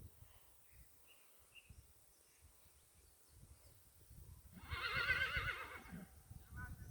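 Mangalarga Marchador horse whinnying: one long, quavering neigh about four and a half seconds in, then a short second call near the end.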